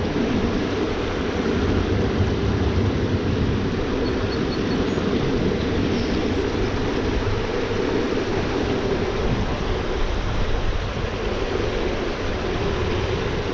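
Steady rushing of flowing creek water, an even noise without breaks.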